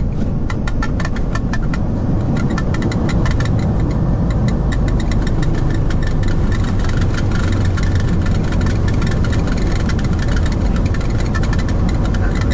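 Embraer 190 airliner rolling down the runway, heard from inside the cockpit: a loud, steady rumble of engines and wheels. Rapid rattling ticks over the first few seconds thin out as the roll goes on.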